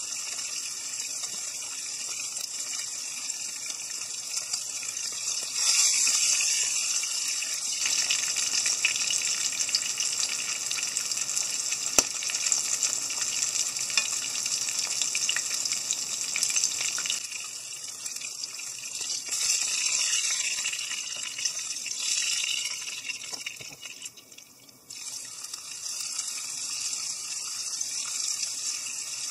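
Sardines pan-frying in hot oil in a frying pan: a steady sizzling hiss that grows louder about six seconds in. A single sharp tap comes near the middle, and the sizzle drops away briefly shortly before the end and then resumes.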